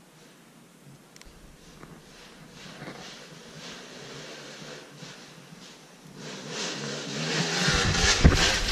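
Dirt bike approaching, its engine faint at first and growing steadily louder over the last few seconds as it nears.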